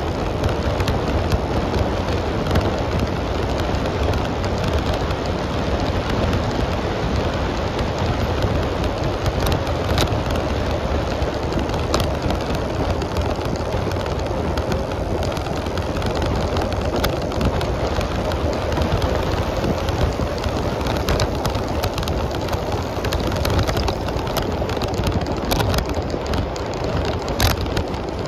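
Steady rushing noise of a bicycle ride: wind and tyre rolling noise picked up by a camera on the moving bike, with a few sharp clicks and rattles scattered through it.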